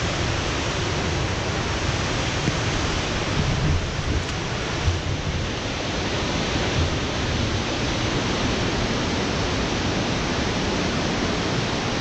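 A large waterfall cascading down a rocky river gorge, making a steady, even rush. A few soft low thumps come about four to five seconds in.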